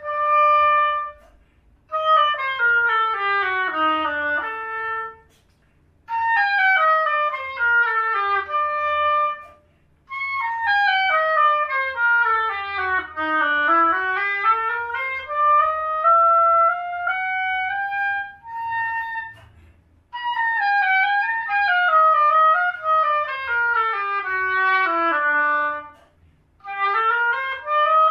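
Solo oboe playing fast stepwise runs in short phrases, mostly falling in pitch, one long run dropping and then climbing back up, with brief breath pauses between phrases.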